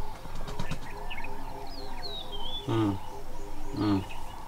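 African lion giving two short, deep grunting calls about a second apart, over birds chirping with thin falling whistles.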